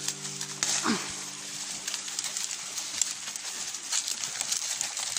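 Leafy branches rustling and twigs snapping as leaves are pulled and handed to miniature goats, with a short falling goat call about a second in. Background music holds a chord and fades out early on.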